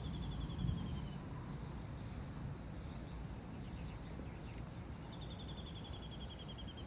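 Steady outdoor background hiss with a low rumble that eases off after the first second. Twice, near the start and again near the end, a bird gives a rapid trill of about ten notes a second that slides slightly down in pitch.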